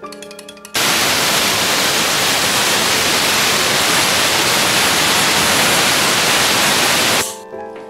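Pressure cooker venting steam through its weighted whistle valve: a loud, steady hiss lasting about six seconds, starting abruptly just under a second in and cutting off near the end. It is the cooker whistling, the sign that it has come up to pressure.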